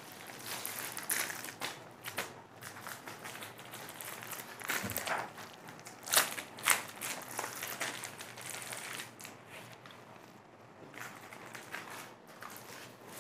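Clear plastic garment packets crinkling and rustling as they are handled and laid on a table, with a few sharper crackles in the middle.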